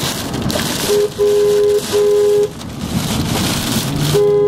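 Car horn honking at slow traffic ahead, with a steady two-note tone: a short tap about a second in, two longer blasts, then a long blast near the end. Rain drums on the vehicle underneath.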